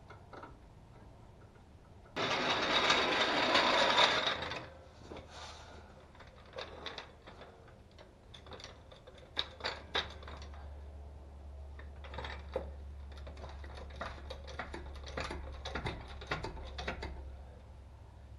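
Mechanic's hand tools at work on a front sway bar link. There is a loud burst about two seconds in that lasts about two seconds, then a run of irregular short clicks like a ratchet wrench, with a low steady hum coming in about seven seconds in.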